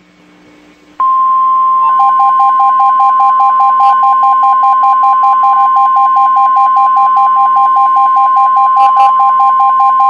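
NOAA Weather Radio warning alarm tone, the single steady 1050 Hz alert tone that marks a warning, starting about a second in and holding loud and unbroken. Just under a second later a rapidly pulsing lower beep joins it and keeps on under it.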